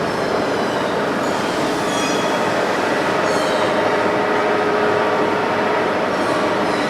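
WMW Niles DP1 facing lathe running: a steady, loud machine noise with several steady tones, and brief high-pitched squeals a couple of times.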